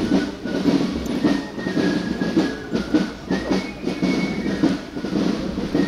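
Footsteps of a marching column on an asphalt road, shoes clacking and scuffing in step with a regular beat about twice a second.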